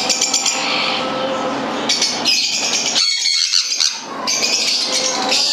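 Sun conure chick squawking in repeated high-pitched bursts while it is held and a few of its feathers are plucked for a DNA sample.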